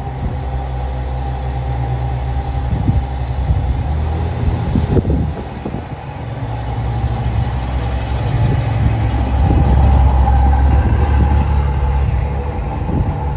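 Ferrari 812 Superfast's naturally aspirated V12 idling steadily just after a first-try start, growing louder about eight seconds in. Gusts of strong wind buffet the microphone now and then.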